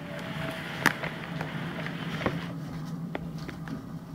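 A steady low buzzing hum, with a few sharp clicks scattered through it.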